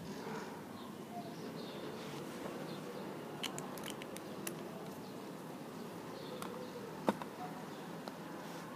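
Quiet background with a few light clicks and taps of small jewelry parts being handled, a short cluster around the middle and the sharpest single click about seven seconds in.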